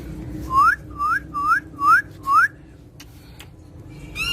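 Whistling: five quick whistles in a row, each sliding upward in pitch, followed near the end by a short call with several tones.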